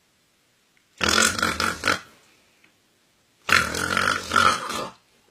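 A man snoring loudly twice in an exaggerated, rasping way, each snore lasting about a second with a pause between.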